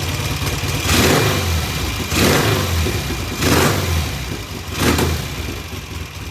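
Vintage British motorcycle engine idling, blipped four times with the throttle and dropping back to idle after each rev; it comes off idle smoothly.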